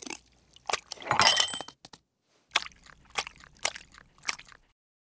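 Foley sound effects with no dialogue or music: a short clatter with a faint ringing edge about a second in, then, after a brief silence, four sharp separate taps roughly half a second apart.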